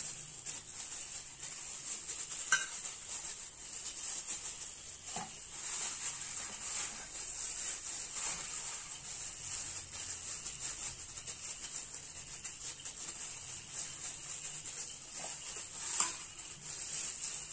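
Plastic-gloved hands squishing and pressing minced burger-patty mixture into a small steel bowl to mould it, with a few light knocks of the steel bowl, the loudest near the end, over a steady faint hiss.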